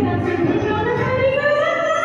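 Amplified live singing of a Telugu film song: a voice glides upward into a long held note over steady band accompaniment.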